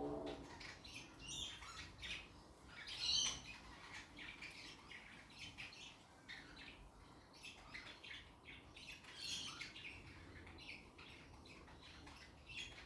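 Pet budgerigars chirping and squawking in short, scattered calls as they crowd and squabble over food; the loudest call comes about three seconds in.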